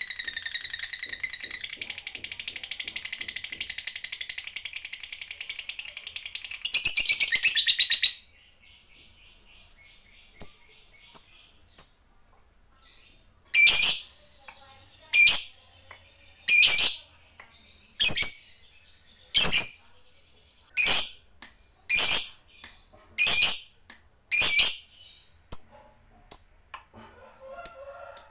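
Lovebird giving a long, rapid chattering trill, the 'ngekek panjang' call, for about eight seconds, louder near its end and then stopping abruptly. After a pause it gives a string of single sharp chirps about every one and a half seconds.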